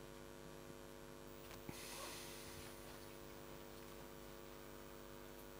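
Near silence: a steady electrical mains hum from the microphone system, with a faint brief rustle about two seconds in.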